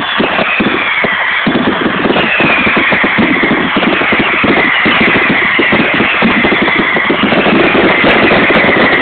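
Fireworks display: dense, continuous crackling and popping from fountains and crackling effects. Over it run high whistles that fall in pitch, repeating.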